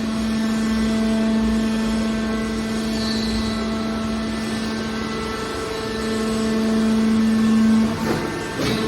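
Hydraulic scrap-metal baler's hydraulic power unit running with a steady, pitched machine hum that grows louder and then drops away near the end, followed by a brief sudden noise.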